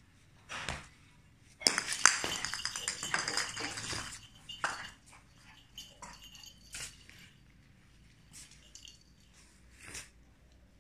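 Rapid metallic clattering and clinking for about two seconds, loudest near its start, followed by a few scattered clicks and taps.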